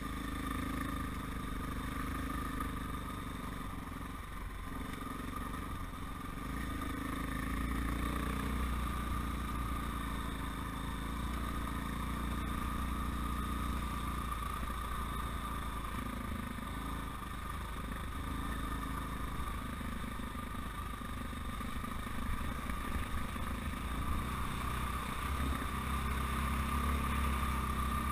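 Dirt bike engine running steadily under way on a gravel track, its note shifting a little up and down with the throttle.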